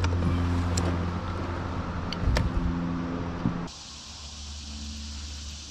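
A boat motor hums steadily, with a few sharp knocks from tackle being handled. About two-thirds of the way through the sound cuts off abruptly to a much quieter, faint low hum under a hiss.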